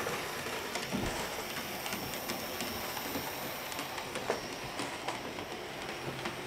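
Märklin HO-scale BR 74 model steam locomotive pulling its wagons around a small oval of track, wheels rattling and clicking over the rails.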